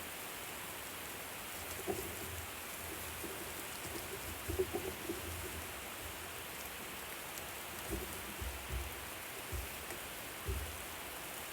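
Food sizzling on a hot barbecue grill: a steady crackling hiss, with a few soft low knocks now and then.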